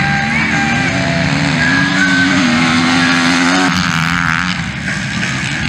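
Motocross bike engine revving under acceleration, its pitch climbing and then holding. A little over halfway through it gives way to a quieter, more distant engine sound.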